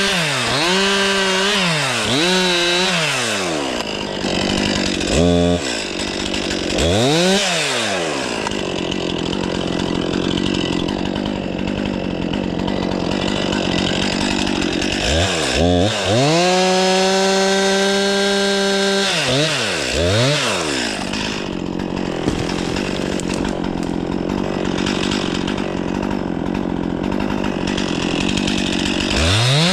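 Stihl 500i two-stroke chainsaw, blipped up and down several times in quick succession, then idling. About halfway through it runs at high revs for about three seconds, drops back to idle, and revs up again at the end.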